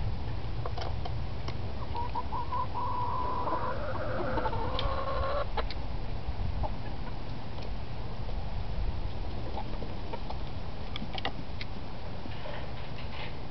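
Backyard chickens clucking, with a run of drawn-out calls about two to five seconds in. A few sharp clicks and a steady low rumble sit underneath.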